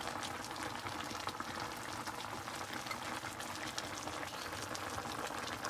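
Goat meat, tomatoes and spices bubbling and sizzling in a karahi over high heat: a steady hiss dotted with many small pops.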